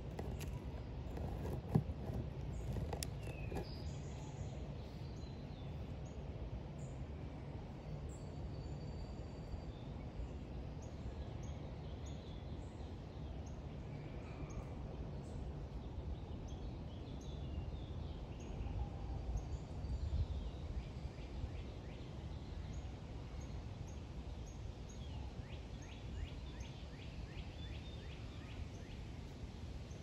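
Outdoor ambience: faint, scattered bird chirps over a steady low background rumble, with a single sharp click about two seconds in.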